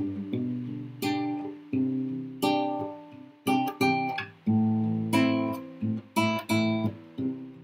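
Acoustic guitar playing: chords struck one after another, each left ringing and fading before the next.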